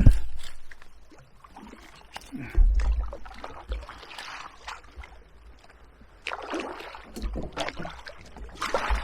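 Kayak paddle splashing and knocking in shallow, weedy water as an inflatable drop-stitch kayak is worked free of a tight, overgrown spot. The knocks and splashes are irregular, with a few heavy low thumps and rumbles.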